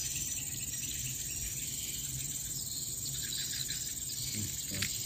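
Steady high-pitched chirring of insects in grassland, with a small sharp click near the end.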